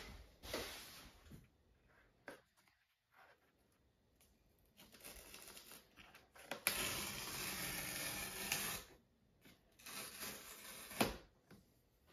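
Paper tear strips being pulled off a sealed Mac Studio cardboard box. After a few light rustles there is a long ripping rasp of about two seconds, then a shorter rip with a sharp click near the end.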